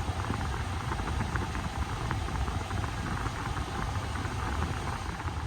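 Toyota 4Runner's 4.0-litre V6 engine running at idle, a steady low hum with a rapid, irregular light ticking over it.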